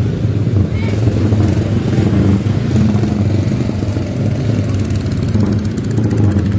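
Motorcycle and truck engines running at low speed in slow street traffic, a steady low drone.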